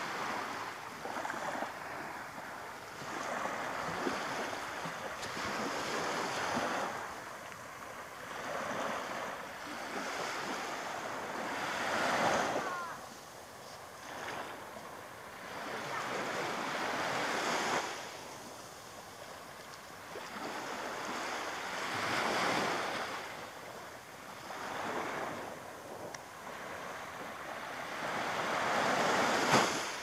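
Small sea waves breaking and washing up a sandy beach, the surf swelling and fading every few seconds, loudest just before the end.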